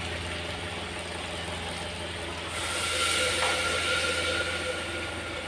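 Water poured from a plastic bottle into a hot pan of chicken curry, hissing and sizzling from about halfway through, over a steady low hum.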